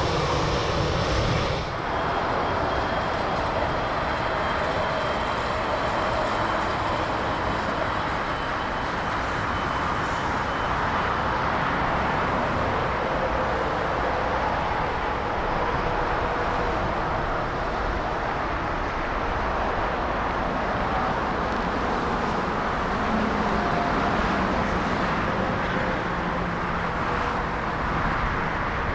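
Jet airliner engines running as a steady rush of noise, with a faint high whine over the first third. The sound shifts abruptly just under two seconds in.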